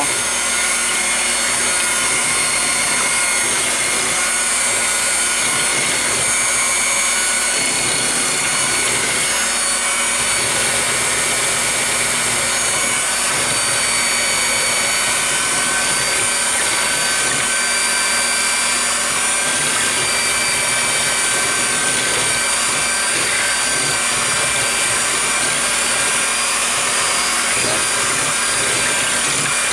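Electric mixer motor running steadily at one speed, mixing a flan custard of eggs, condensed milk, half-and-half and vanilla.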